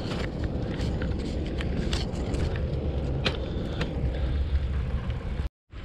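Riding noise from a road bike in motion: a steady low rumble of wind and tyres on the path, with frequent small ticks and rattles. The sound cuts out briefly near the end.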